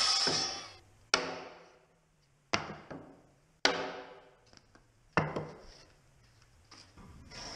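A circular saw's noise dies away in the first second, then a hammer strikes a timber beam four times, a second or so apart, knocking the sawn waste off; each blow is sharp and rings briefly.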